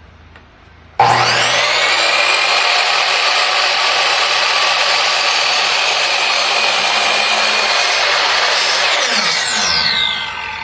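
Vevor 10-inch sliding compound miter saw starting about a second in, its whine rising quickly to full speed, then running steadily for about eight seconds as its stock 60-tooth blade cuts through a board. Near the end the trigger is let go and the blade spins down with a falling whine.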